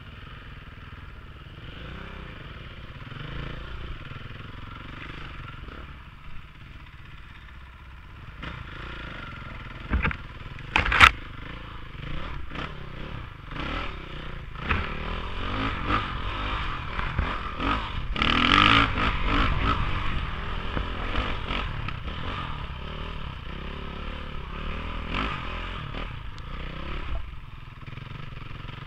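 KTM 500 dirt bike's single-cylinder four-stroke engine running as the bike is ridden up a rough dirt fire trail. Two sharp knocks, the loudest sounds, come about ten and eleven seconds in, and the engine gets louder a little past halfway.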